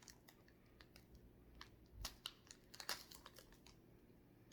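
Faint, scattered clicks and crinkles, a few louder ones between two and three seconds in: a person chewing a sticky banana toffee and handling its plastic wrapper.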